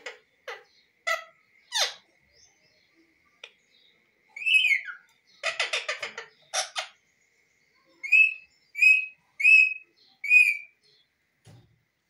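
Indian ringneck parakeet calling: a few short chirps, a downward-sliding call, a rapid rasping chatter, then four short sharp calls in a row under a second apart near the end.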